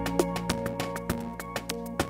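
Background music: sustained chords with quick, regular notes struck over them.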